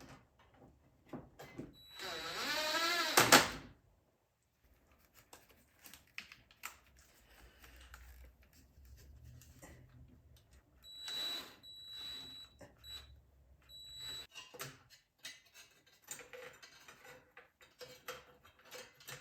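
Power driver briefly spinning up with a pitch that bends up and down, then several short whining bursts, tightening the intake's clamps and bracket fasteners, with scattered clicks of tools and parts.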